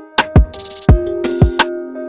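Background music: an electronic hip-hop style beat with kick drum, snare and hi-hat under sustained synth or guitar notes.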